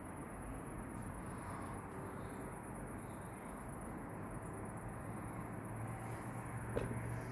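Crickets chirping in a steady, fast-pulsing high trill over a low, even rumble. A low hum comes in about six seconds in, and there is a short click near the end.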